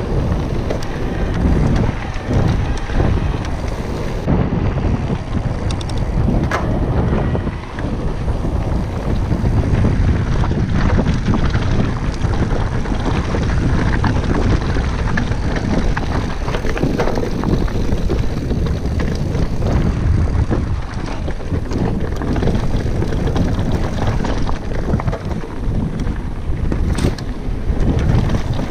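Mountain bike riding fast over a loose, rocky dirt trail: steady tyre rumble on the gravel with frequent rattles and knocks from the bike over stones, under heavy wind buffeting on the microphone.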